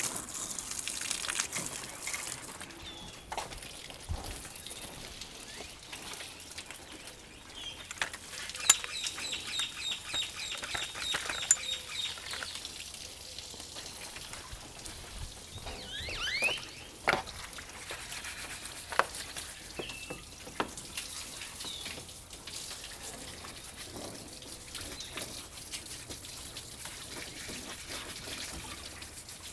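A water spray hissing, which stops about two seconds in, leaving water dripping and trickling. Birds chirp through it, with a quick run of evenly spaced chirps near the middle and a rising call a few seconds later.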